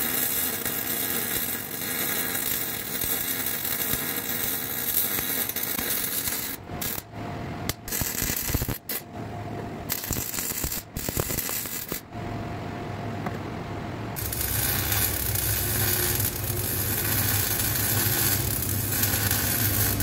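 Arc welding on the steel engine-mount plate and frame: a steady crackle in a long run, then several short bursts with gaps between them from about a third of the way in, then another long steady run near the end.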